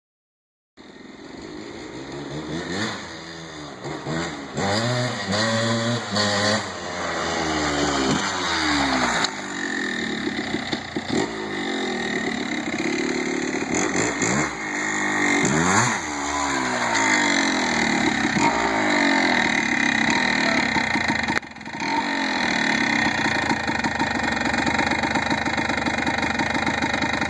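Freshly rebuilt 1987 Kawasaki KDX 200's single-cylinder two-stroke engine revving up and down again and again as the bike is ridden, then running at a steadier, higher pitch, with a brief drop in the engine note about 21 seconds in.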